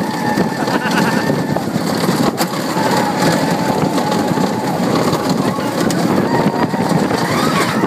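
Steady rumble of the Avalanche bobsled coaster's car running along its track, with a faint thin whine over it.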